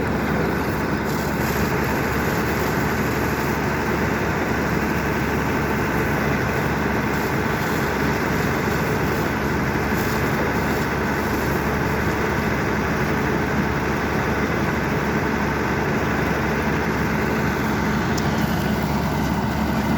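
A vehicle engine idling steadily, with a low hum.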